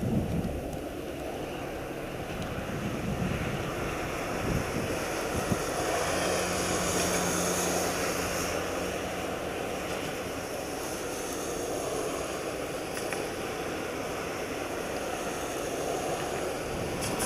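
Wind buffeting the microphone, with one long low blast of a distant cruise ship's horn held steady for about four seconds in the middle.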